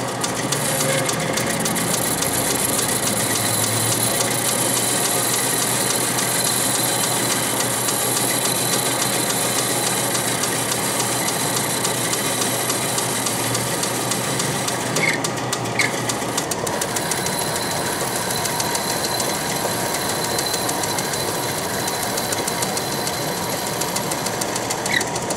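South Bend 10-inch Heavy lathe running at about 1400 RPM while a hand-fed round-nose tool takes a taper cut on a bar in the chuck: a steady, even machine noise.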